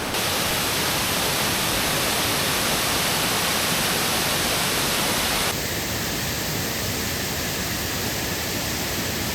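Waterfall splashing into its pool: a steady, even rush of falling water. About five and a half seconds in it turns suddenly duller, with less hiss.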